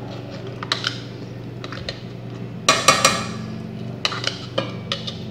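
Metal spoon clinking and scraping against a glass bowl as chopped onion and carrot are tapped out into a stainless steel pot: a few scattered clinks, then a loud cluster about three seconds in and another shorter run near the end.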